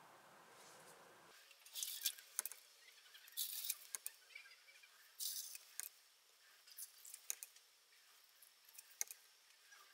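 Water being drawn into and squirted out of a large plastic syringe into a plastic cup: three short hissing spurts, with light plastic clicks and taps from the syringe in between.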